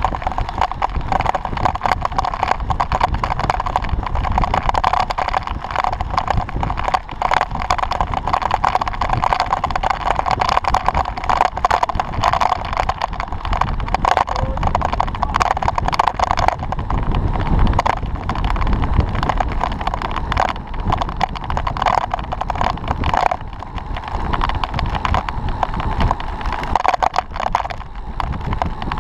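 Wind and road noise on a camera riding on a fast-moving road bike: a steady rushing noise with many small clicks and rattles from the bike going over the tarmac.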